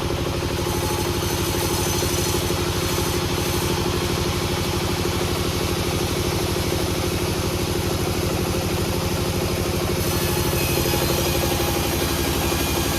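An engine running steadily at an even speed, with a fast, regular firing pulse and a constant hum.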